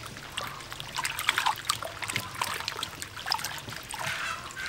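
Water sloshing and splashing in a stainless steel bowl as hands rub and wash peeled green papaya, with many small irregular splashes and drips.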